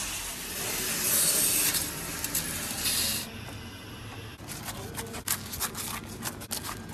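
A loud, steady hiss for about the first three seconds. Then, from about halfway in, a large knife scrapes and crunches through a crisp baked flatbread in quick, irregular strokes.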